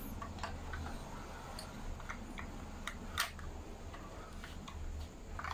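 Light scattered clicks and taps from a 1:24 diecast BMW i8 model car being handled, its butterfly doors and small metal and plastic parts moved by hand, over a low steady hum. The sharpest click comes about three seconds in.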